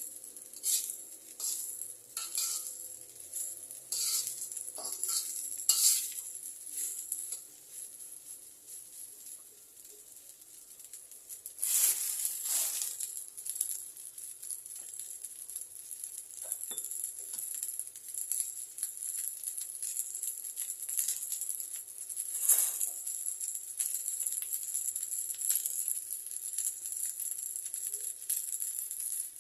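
Frying in a pan for fried rice: a metal spatula scrapes and taps for the first several seconds, then food going into hot oil about twelve seconds in sets off a loud sizzle that keeps hissing, with more scrapes now and then.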